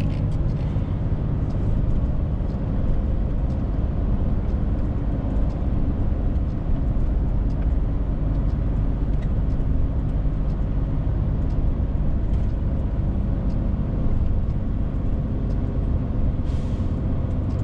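Inside the cab of a DAF XF 530 truck: its PACCAR MX-13 inline-six diesel runs at a steady pitch under a constant road rumble. A brief hiss comes near the end.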